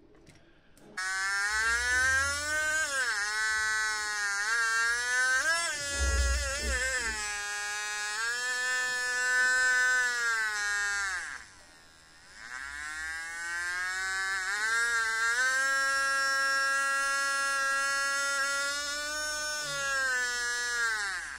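The small DC motor of a bottle-cap toy helicopter whines as it spins the little plastic rotor. Its pitch wavers as it runs. It spins up about a second in, winds down and back up around the middle, and slows near the end.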